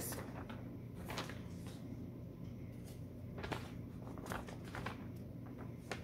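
Sheets of printed paper rustling as they are leafed through and handled, a few short rustles about a second in and again between three and a half and four and a half seconds, over a low steady hum.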